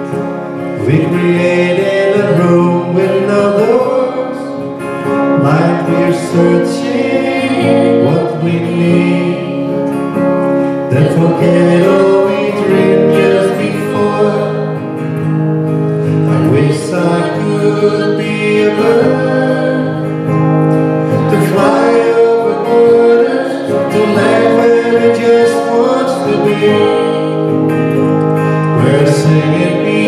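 Live acoustic duo performance: strummed guitars with a man and a woman singing together, amplified through a small PA.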